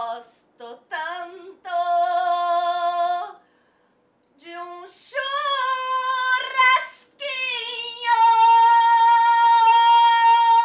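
A woman singing alone in a mock-operatic style, with no accompaniment: a few short phrases, a brief pause, then rising phrases ending in a long high held note that stops abruptly.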